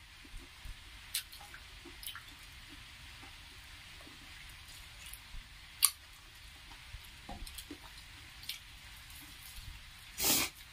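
Close-miked eating sounds: quiet wet chewing and squishing of rice and chicken curry eaten by hand, with scattered small clicks and lip smacks. Near the end there is a louder noisy sound lasting about half a second.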